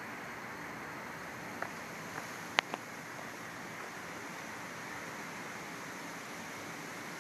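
Steady rushing background hiss outdoors, with a few short sharp clicks a second and a half to three seconds in, the loudest about two and a half seconds in.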